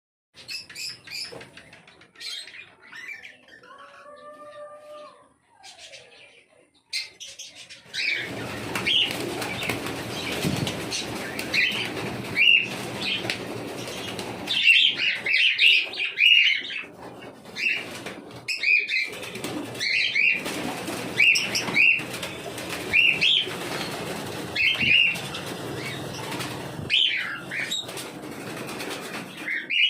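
Cockatiels chirping over and over, with the rustle of flapping wings. It is quieter for the first eight seconds or so, then turns louder and busier, with bursts of chirps every second or two.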